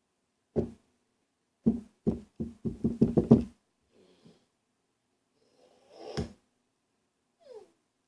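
A series of hard knocks in a small room: a single one, then a quick run of about seven, speeding up, and one more a few seconds later.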